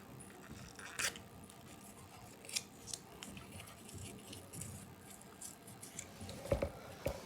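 Faint clicks and scrapes of a battery wall clock's plastic movement being handled, its label being peeled off, with a sharper click about a second in and a few low knocks near the end.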